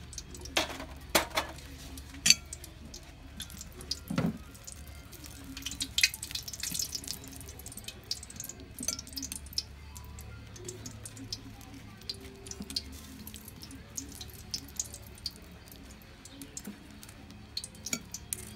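Fish cakes deep-frying in a wok of hot oil: a steady sizzle broken by irregular sharp crackles and pops, most of them in the first few seconds.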